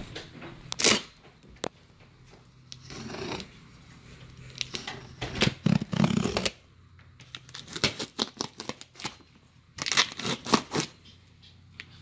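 A knife slitting the plastic wrap on a cardboard box and the wrap being torn open, in irregular bursts of scraping and ripping with sharp clicks.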